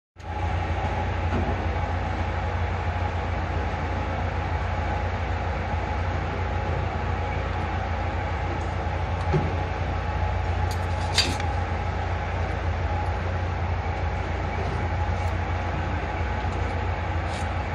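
Ship's machinery running with a steady low drone, and two brief clinks around the middle.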